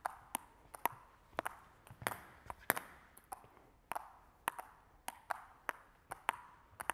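Celluloid-type table tennis balls bouncing on the rubber faces of two table tennis paddles, turned between forehand and backhand sides. Each bounce is a sharp tick with a short ring, about two to three a second, irregularly spaced because two balls are going at once.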